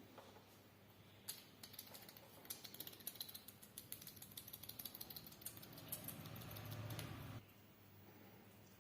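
Hands working on a client during an oil massage, making quick, irregular light clicks and taps. A low hum joins near the end and cuts off suddenly.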